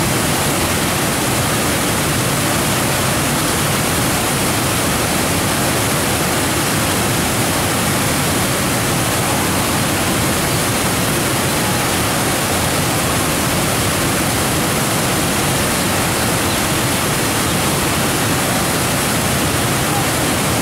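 Whitewater river rapids rushing: a loud, steady, unbroken wash of water noise.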